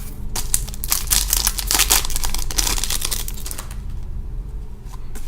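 Plastic-foil wrapper of a hockey card pack being torn open and crinkled, dense crackling for the first three and a half seconds, then quieter with a few light clicks of cards being handled.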